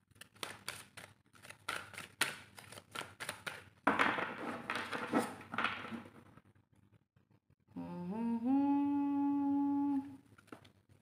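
A deck of tarot cards shuffled by hand: a quick run of soft card flicks and clicks for about six seconds. Then a woman hums one steady note for about two seconds, sliding up into it at the start.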